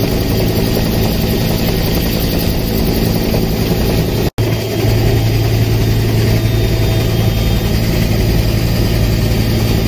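Helicopter cabin noise in flight: steady engine and rotor noise with a low hum. About four seconds in, the sound drops out for a moment at a cut, then resumes with the low hum stronger.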